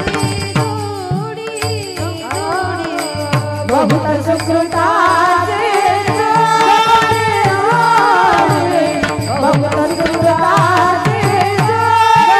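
Devotional kirtan music: a hand drum plays repeated strokes, some with deep bass notes that slide down in pitch, under steady held drone tones. An ornamented, wavering melody rises and fills out about four seconds in.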